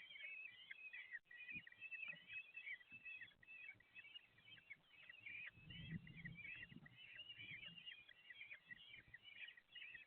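Faint, continuous chittering of Eurasian kestrel chicks begging at feeding, many short high calls in quick succession, with a soft low thump about six seconds in.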